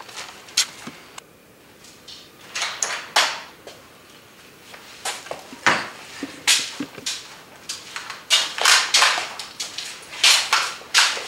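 Irregular footsteps, scuffs and knocks, with a door being opened and gone through.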